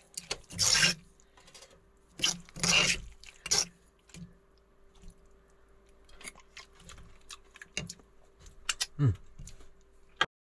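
Chunky salsa being mashed and scraped in a stone molcajete, with a few loud rasping strokes in the first four seconds. Lighter clicks and taps follow, with a sharp tap near the end.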